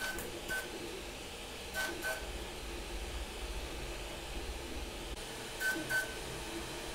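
Flsun Super Racer delta 3D printer running a print: a steady, quiet fan and motion hum, broken three times by a pair of short, high chirps from the Bowden extruder's motor as it retracts the filament.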